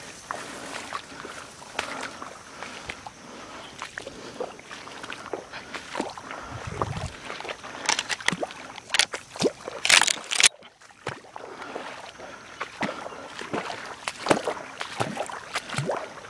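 Water sloshing and splashing in irregular strokes as someone moves through shallow marsh water, with a loud, sharp splash-like noise about ten seconds in.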